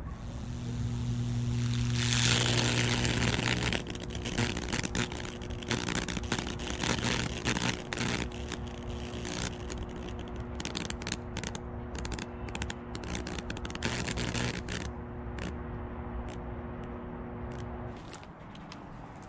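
High-voltage fractal-burning transformer humming steadily as current arcs and burns across wet oak wood. A loud sizzling hiss comes in the first few seconds, followed by irregular crackling snaps. The hum cuts off near the end.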